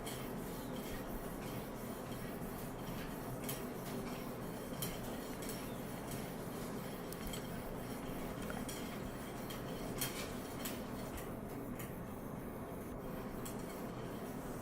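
A cleaning rod with an oiled felt pad being pushed back and forth through a rifle barrel: soft rubbing with scattered light metallic clicks and clinks of the rod against the steel.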